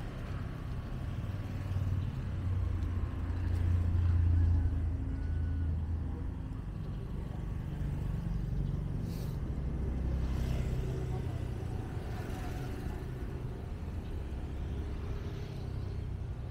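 Low engine rumble of a motor vehicle over outdoor street ambience, swelling to its loudest about four seconds in and then settling to a steady lower drone.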